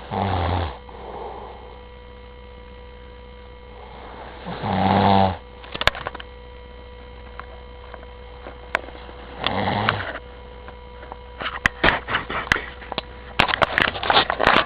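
A man snoring heavily in his sleep: three loud, rough snores about every four to five seconds, over a steady electrical hum. Near the end, a quick run of clicks and rustling.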